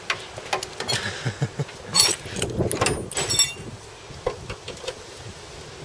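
Metal parts clinking and rattling as they are handled, with sharp clanks that ring briefly about two and three seconds in.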